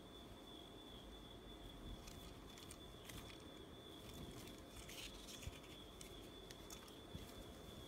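Near silence: faint rustling and light ticks of a thin patterned dress and its paper tag being lifted and handled, over a steady faint high whine.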